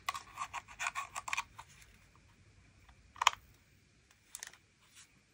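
A USB cable plug being fitted into a plastic power bank: a run of small clicks and scratchy handling noises in the first second and a half, then a single sharper click about three seconds in and a few faint ticks after it.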